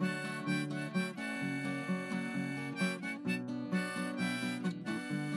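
Background music: acoustic guitar with a harmonica over a steady, even beat.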